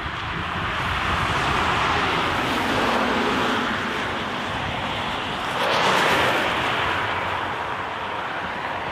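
Road traffic: cars driving past on a street, a steady wash of noise that swells as one passes closest about six seconds in.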